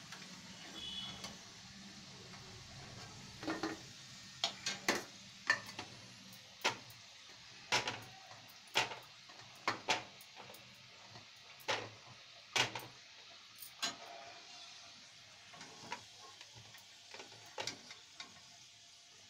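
Hot oil sizzling steadily in a steel kadhai as kachoris deep-fry, with a metal slotted spoon clinking and knocking against the pan and plate again and again, at irregular intervals, from a few seconds in until near the end.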